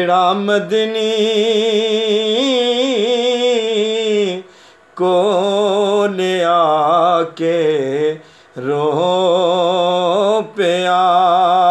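Man singing a naat, a devotional poem in praise of the Prophet, without words in this stretch: long held, wavering notes in three phrases with short breaths between them.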